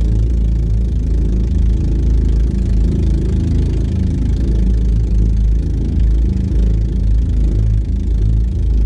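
A 7 hp Golden Horse marine engine powering a small outrigger boat, running steadily at high speed under load with its governor removed ('kapon'), so it pulls hard. Water rushes and splashes off the hull and outriggers.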